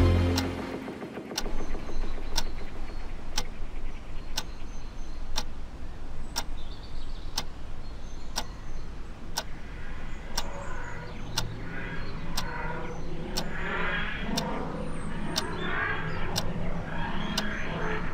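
A clock ticking about once a second over a low hum. From about ten seconds in, the TARDIS materialisation sound swells in, rising and falling in waves.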